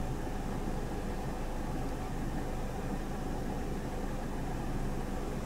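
An engine idling steadily: an even, low running hum with no change in pitch.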